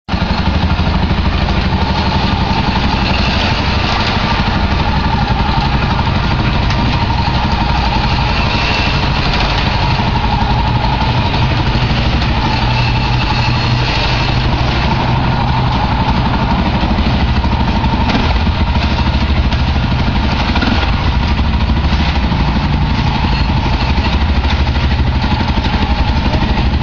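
An engine running steadily at an even speed, its pulsing unbroken and unchanging in level.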